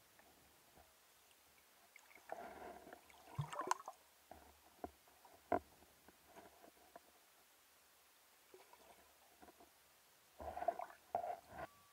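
Muffled underwater handling noises of spearfishing gear and a speared carp: scattered short knocks and scrapes, a sharp click about five and a half seconds in, and a cluster of knocks near the end, over a faint quiet underwater background.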